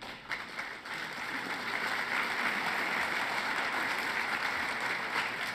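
Audience applauding, swelling over the first couple of seconds and then holding steady.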